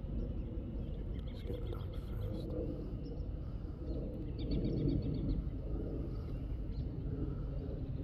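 Steady low outdoor rumble, with a few faint bird chirps about a second and a half in and a quick run of chirps around four and a half seconds in.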